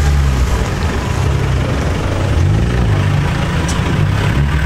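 Car engine running at low revs with a brief rise in revs about two and a half seconds in, as a car rolls slowly past.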